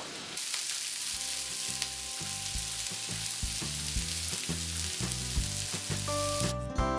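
Steady sizzling, like food frying in a hot pan, over background music; the sizzle stops near the end.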